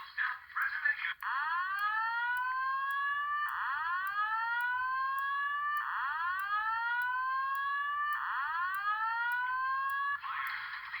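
Simplex voice-evacuation fire alarm speaker sounding a whoop tone: four rising sweeps in a row, each about two and a half seconds long, part of an evacuation signal. A recorded voice message plays through the same speaker briefly at the start and again near the end.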